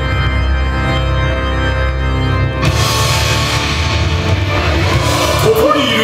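Halloween parade music over the park loudspeakers: sustained organ chords over a heavy bass. About two and a half seconds in, a brighter, fuller section of the arrangement comes in, and a voice begins near the end.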